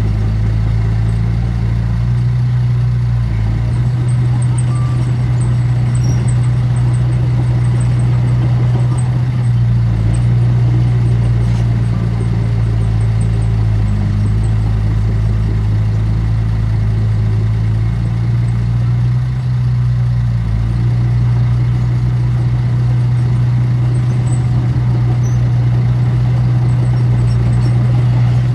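Heavy diesel engine of earthmoving equipment running steadily with a low hum, easing off briefly every few seconds.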